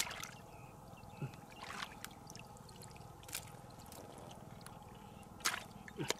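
Water and mud sloshing as hands grope through a shallow muddy pool, with a handful of short splashes a second or two apart.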